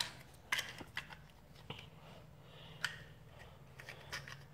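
Small plastic toy trucks being handled: a few faint, sharp clicks and taps at irregular moments, the clearest about half a second and nearly three seconds in.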